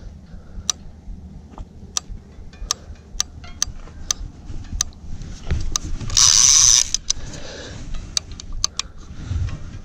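Fishing reel being cranked against a hooked sturgeon, its gears clicking in irregular ticks as line is won back. A short loud hiss cuts in about six seconds in.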